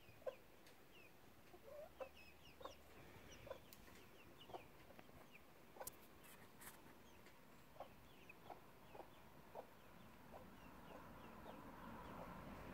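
Silkie chickens clucking faintly: short low clucks about once a second, with small high falling peeps among them. A few sharp clicks come about halfway through.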